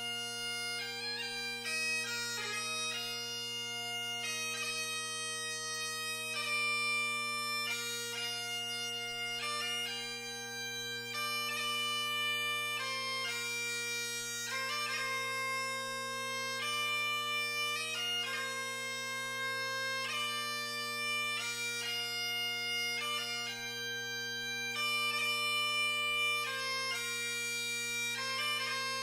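Great Highland bagpipe playing a melody on the chanter over its steady, unbroken drones.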